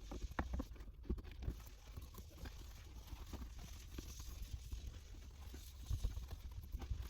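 Irregular taps, scrapes and rustles of carpet and its fibrous padding being handled and trimmed in a car's footwell, over a steady low hum.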